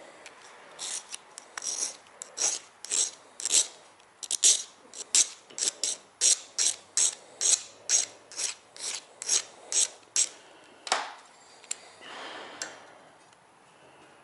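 Quick, even hand strokes of an abrasive tool on a metal RC boat propeller blade, about two to three a second, as the blade is shaped and sharpened. The strokes stop about ten seconds in, followed by one more stroke and a softer rub.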